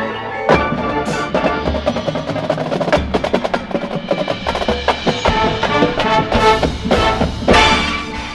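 High school marching band playing: held wind and brass chords punctuated by many sharp percussion hits and low bass drum strikes.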